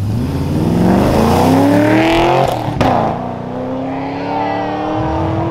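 Chevrolet Camaro's engine revving hard, its pitch climbing steadily for nearly three seconds, then a sudden break and an engine running on with a slower, gently rising pitch.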